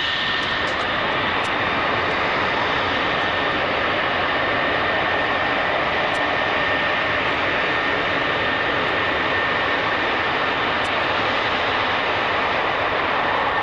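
A pair of EF-111A Ravens' TF30 turbofan engines running steadily as the jets hold on the runway, a dense even jet noise with a faint high whine that fades in the first couple of seconds.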